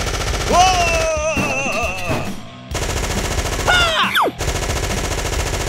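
Sound-effect machine gun firing in rapid, sustained automatic bursts, with brief breaks about two and a half and four and a half seconds in. A wavering wail sounds about half a second in, and a short falling wail around four seconds.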